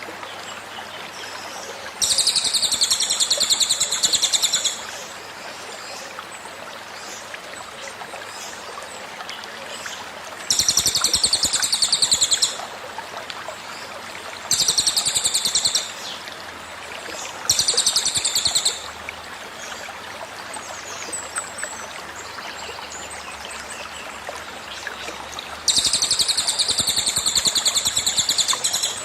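Five bursts of a cililin's rapid, high trilling 'tembakan' song, each one to three seconds long and several seconds apart, over a steady babble of flowing stream water.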